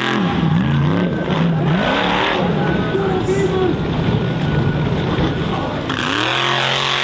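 Off-road buggy engine revving hard, its pitch swinging up and down with the throttle; about six seconds in a different buggy's engine takes over, held at steady high revs.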